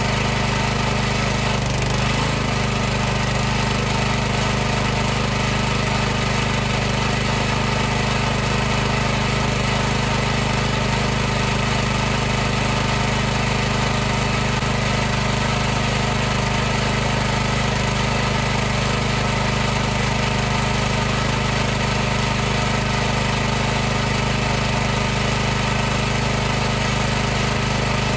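High-pressure washer running continuously: a steady pump hum with a hiss over it.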